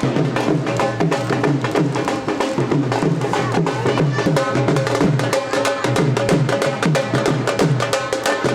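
Music with fast, dense drumming: many drum strokes a second over a repeating bass line.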